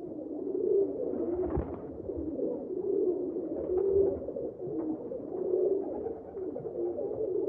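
Pigeons cooing, several low, wavering coos overlapping without a break. A short thump sounds about one and a half seconds in.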